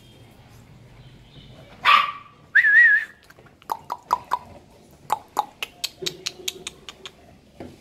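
English bulldog puppies barking and yelping: a sharp bark about two seconds in, a short wavering whine right after it, then a quick, uneven run of short yaps.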